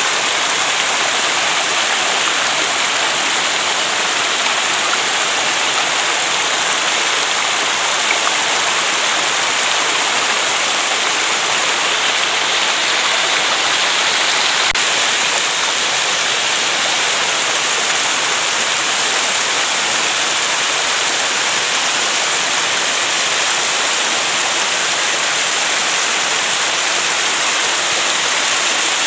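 Small waterfall: water spilling down a stepped rock face in shallow sheets, a steady, close rush and splash that never lets up.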